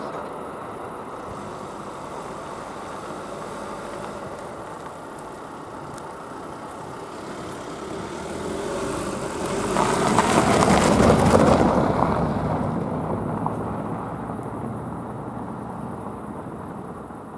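A car drives over the level crossing and passes close by. Its engine and tyre noise rise to a peak about ten seconds in, then fade away.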